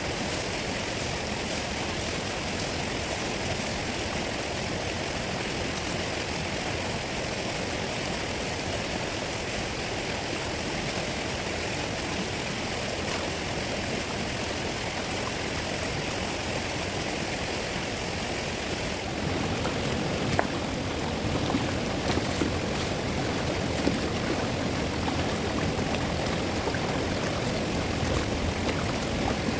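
Fast river water rushing steadily. About two-thirds of the way through the sound shifts to a louder, fuller rush, with a few sharp knocks soon after.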